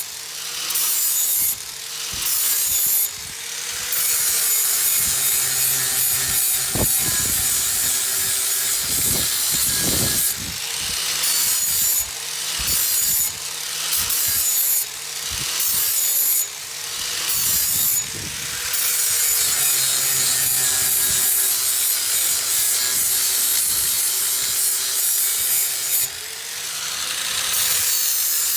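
Angle grinder grinding the edge of a steel lawn mower blade to sharpen it and take out nicks and burrs. The grinding comes in repeated passes that let up briefly every second or two, with one longer unbroken stretch near the end. The motor's note wavers up and down as the disc bears on the edge.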